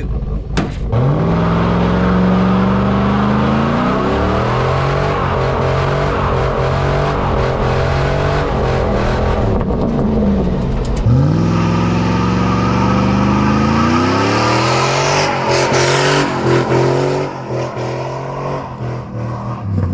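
Junkyard 5.3-litre LS V8 with a Truck Norris camshaft revving hard during a burnout attempt. The revs climb from about a second in, hold, dip near ten seconds, then climb again, with a rushing hiss of spinning tires in the middle of the second rise.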